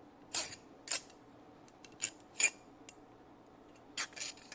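Small metal parts of a hand tool being handled and fitted together: a handful of short, sharp metallic clicks and scrapes, the loudest about two and a half seconds in.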